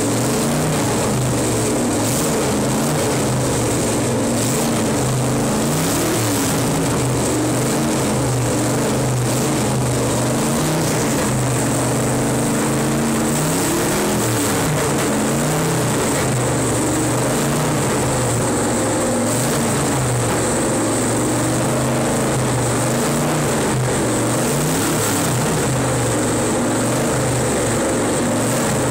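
Stock car engine idling steadily with a slightly uneven beat, blipped up briefly about six seconds in and again around the middle.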